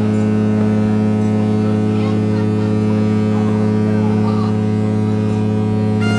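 Ship's horn sounding one long, steady, deep blast. A higher-pitched horn tone joins near the end.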